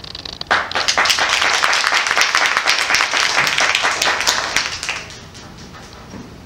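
Audience applauding: a burst of many hands clapping that starts about half a second in and dies away about five seconds in.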